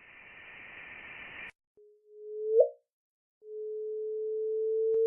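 Sonified chirp of two black holes merging, heard twice: a low steady tone that grows louder and ends in a quick upward sweep, the first short one about two seconds in, the second longer and still swelling at the end. A faint hiss fills the first second and a half, and a brief click comes near the end.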